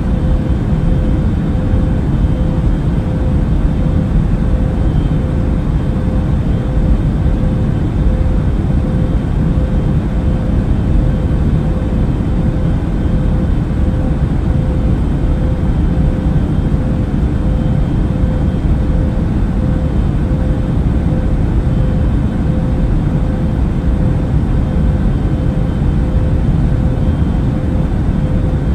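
Airplane cabin noise in flight: a loud, steady low rush with a faint constant hum above it, unchanging throughout.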